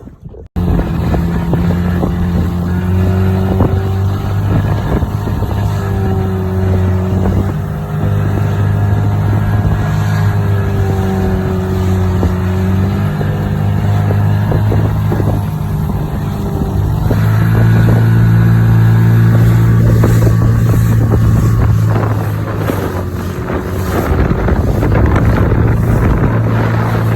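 Small outboard motor on an aluminium tinnie running under way, starting suddenly about half a second in. Its pitch shifts up and down, and it runs louder and higher for a few seconds past the middle.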